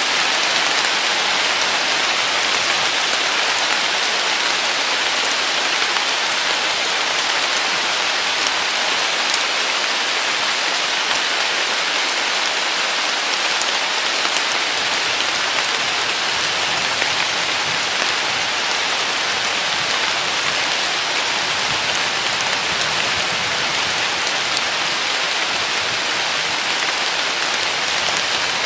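Heavy summer rain falling on a weeping willow's leaves: a steady, even hiss with no thunder.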